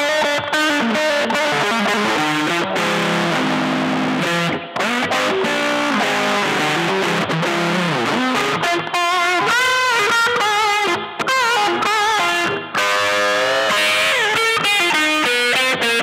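Electric guitar played through a board of effects pedals: improvised lead lines of separate notes, with bent and wavering notes now and then.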